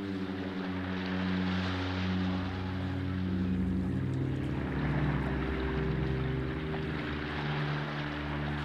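Slow incidental music of held low chords that move to new notes every second or two, over a steady hiss.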